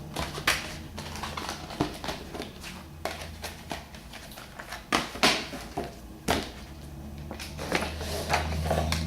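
Handling noise as a Blu-ray disc, its plastic case and printed inserts are packed back into their cardboard box: scattered clicks, taps and rustles of plastic and card, over a low steady hum.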